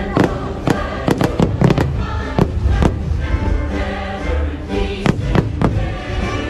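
Aerial firework shells bursting in sharp bangs, a quick run of them in the first three seconds and a few more about five seconds in, over show music playing throughout.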